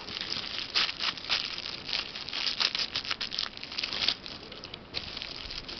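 Clear plastic packaging crinkling in irregular bursts as makeup brushes are handled inside it, dying down after about four seconds.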